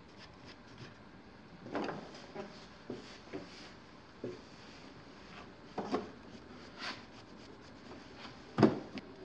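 Irregular scrapes and short knocks of a wooden tool working a clay pot clamped on a potter's wheel, with one louder knock near the end.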